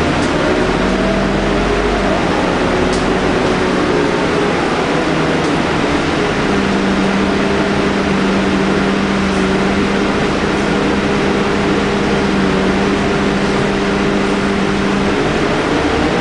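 Scania K310UD double-decker bus under way, heard from the upper deck: its DC9 diesel engine and ZF Ecomat automatic drivetrain drone steadily. A low hum holds steady from about six seconds in, and there are slight pitch glides at the start and the end.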